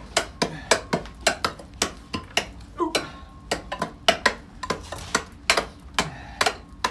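Short-handled pick striking and chipping into the floor of a coal-mine drift, about three or four sharp strikes a second with a brief pause about three seconds in, as the packed floor is dug down layer by layer.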